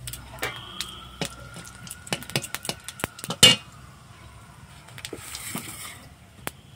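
Metal spatula clinking and scraping against an aluminium kadai while stirring spices in oil: a run of sharp clinks, with one loud clank about three and a half seconds in.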